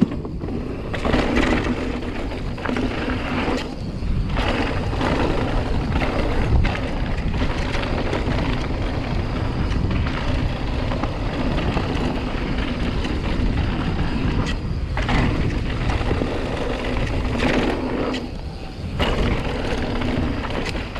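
Mountain bike rolling fast down a loose, rocky dirt trail: a steady rush of wind and tyre noise on the action camera's microphone, with scattered knocks and rattles from the bike over the rough ground.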